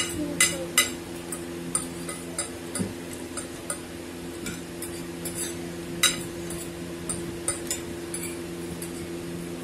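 Metal forks clinking and scraping on ceramic plates as two people eat noodles: irregular light clinks, the loudest about six seconds in, over a steady low hum.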